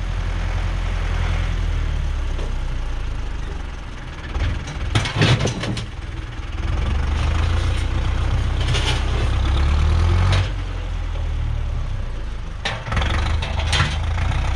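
Fendt Farmer tractor's diesel engine running under a front loader, revving up for a few seconds in the middle. Clanks and knocks of concrete grass-paver blocks in the loader bucket come about five seconds in and again near the end, as a block is set down.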